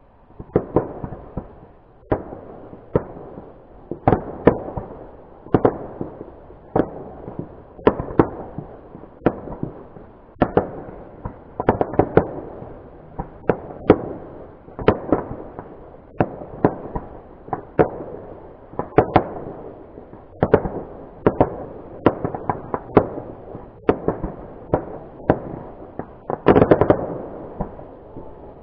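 Fireworks display: sharp bangs of bursting aerial fireworks, about one or two a second, over a continuous crackling din, with a quick cluster of bangs near the end.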